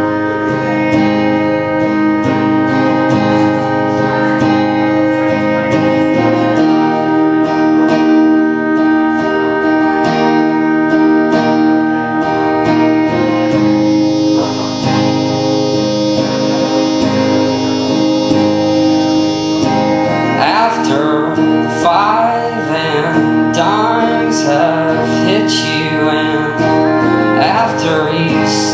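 Live acoustic guitar strumming with sustained keyboard chords in an instrumental passage; a male voice comes in singing about two-thirds of the way through.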